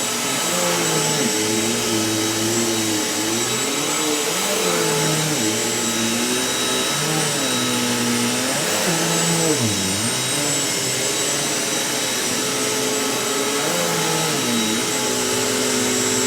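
Vacuum cleaner running steadily with a constant hiss and whine, its lower tone wavering up and down.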